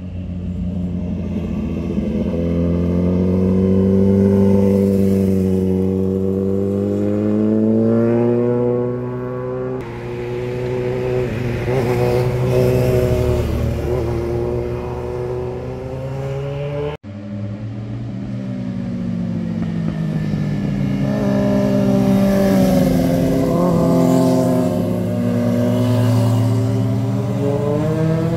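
Motorcycle engines sweeping through a hairpin bend one after another, their pitch rising and falling as the riders roll off and open the throttle and change gear, with a sudden break about halfway through.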